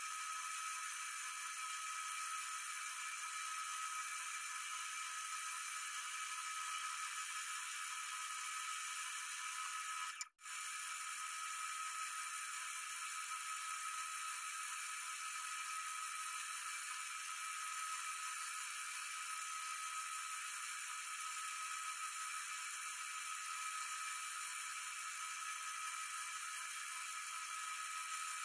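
Wood lathe spinning a western red cedar box lid while a gouge cuts it, a steady thin whir with no low end. The sound cuts out for an instant about ten seconds in.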